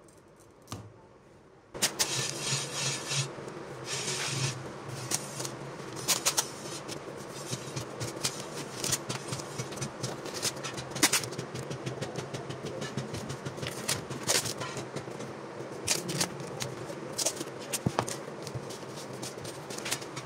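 A power tool's motor starts running about two seconds in and runs steadily, with many irregular sharp clicks and knocks over it, during the polishing of a machete blade.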